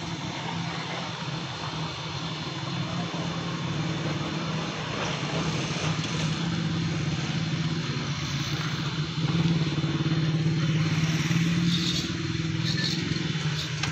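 An engine running steadily at an even speed, growing louder about nine and a half seconds in.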